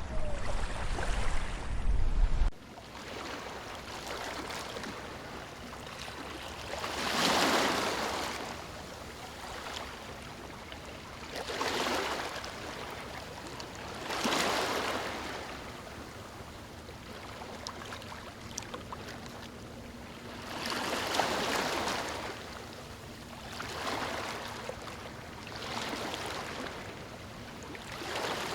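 A loud, deep rush of water cuts off about two and a half seconds in. Small waves follow, washing in and swelling every few seconds over a steady wash of water.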